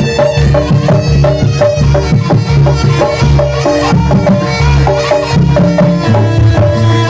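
Jaranan accompaniment music: traditional Javanese ensemble of drums and pitched gong-chime percussion playing a fast, steady beat.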